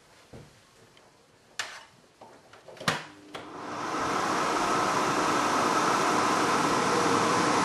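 Two sharp clicks, then a home food dehydrator's fan starting up about three and a half seconds in and running steadily. It is switched on to dry marinated beef jerky.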